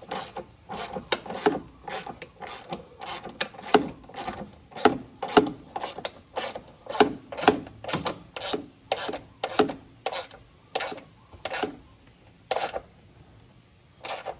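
A 1/4-inch drive ratchet, on extensions with a 13mm socket, clicking in a run of quick strokes as it snugs down a car battery's hold-down bolt, about two or three strokes a second. The strokes stop about twelve seconds in, with two more spaced out near the end as the bolt comes tight.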